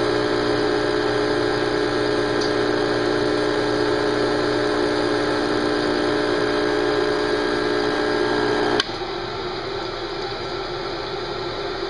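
Rancilio Silvia espresso machine's vibratory pump humming steadily while the shot pulls. It shuts off with a click about nine seconds in, leaving a fainter steady hum.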